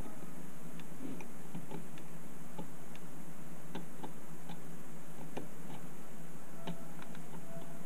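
A pointed tool scraping hardened glue off a laptop power adapter's circuit board, heard as irregular small clicks and scratches, a few a second, over a steady low hum.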